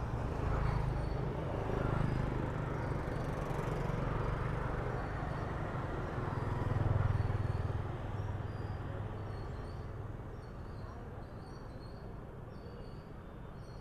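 Outdoor market ambience: a steady low rumble of passing traffic that swells around seven seconds in as a vehicle goes by, then slowly fades. Faint short high chirps come in over the second half.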